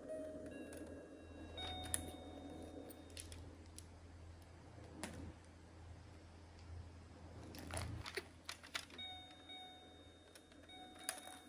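Electronic beeping notes from a plastic children's toy piano keyboard as its keys are pressed, in two short stretches, one near the start and one near the end, with scattered plastic clicks and taps in between.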